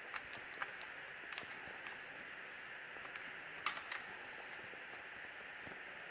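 Scattered light clicks and taps from hands handling the wall switch and its dimmer wiring, over a steady faint hiss. The sharpest click comes about three and a half seconds in.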